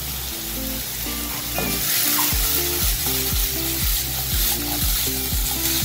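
Diced onions, carrots and sausage sizzling in olive oil in a frying pan, being stirred. Soft background music with a regular low beat, about two a second, sits under the sizzle from about two seconds in.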